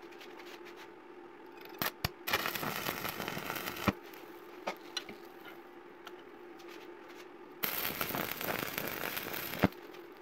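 Electric arc welding on a small steel part: two short welds, each a second and a half to two seconds of dense crackling that starts with a sharp click as the arc strikes. A steady low hum sits beneath.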